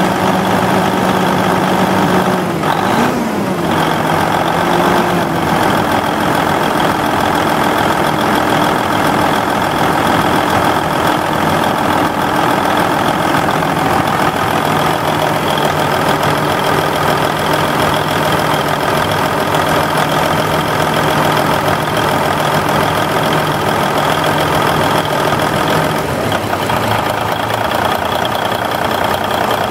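Cummins N14 Celect inline six-cylinder turbo diesel idling steadily. Its pitch wobbles and settles a little lower about three seconds in.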